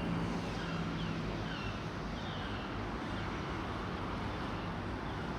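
Steady city background noise of distant road traffic, with faint short high chirps repeating about once a second.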